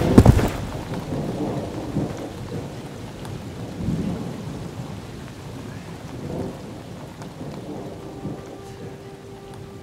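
A thunderclap with rain: a loud crack at the start, then rumbling that swells a few more times and slowly fades over steady rainfall.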